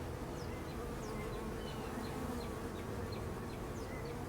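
Honeybees humming steadily over an opened hive of queenless bees, with many bees crawling over a queen cage on the frames.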